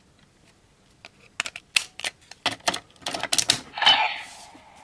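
Hard plastic parts of a DX Mirai Driver toy belt clicking and rattling as the Kikai face plate is fitted onto it by hand: a run of irregular sharp clicks, followed about four seconds in by a brief fading rush of sound.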